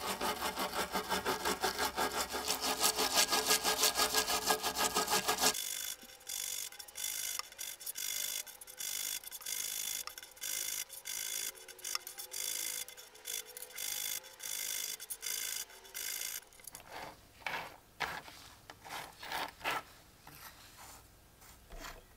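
Stiff brush scrubbing wet coins in a metal tray: fast back-and-forth strokes, about five a second. About five seconds in it changes to slower, separate strokes about once a second, and near the end come a few sharp clicks and taps.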